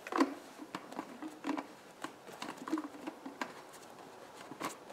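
Scattered light clicks and scrapes of plastic: the fuel cap being screwed onto a Homelite string trimmer's tank and the trimmer handled on the grass, with a sharper click near the end.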